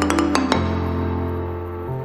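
Background music: held low notes that shift in pitch, with a quick run of light percussive clicks in the first half second.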